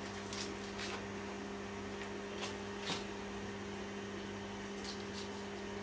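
A steady low hum with a few faint, short crinkles and ticks scattered through it, from foil-wrapped Knorr stock cubes being unwrapped by gloved hands.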